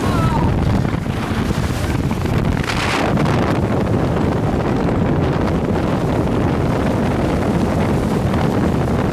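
Wind buffeting the microphone over the steady noise of a fast boat running at speed and its churning wake, with a brief hissing swell about three seconds in.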